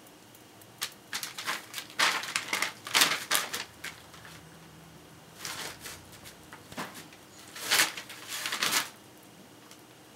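Small dogs scuffling in a fabric dog bed: pawing, scratching and rustling of the bedding in two spells a few seconds apart.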